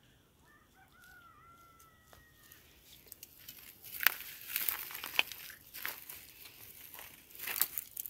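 A rooster crowing: one long, faint call in the first seconds. From about three seconds in, irregular crunching and crinkling noises follow, louder than the crow.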